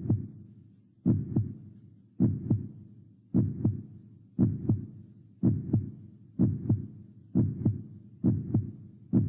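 Heartbeat sound effect: a slow lub-dub double thump repeating a little under once a second, quickening slightly.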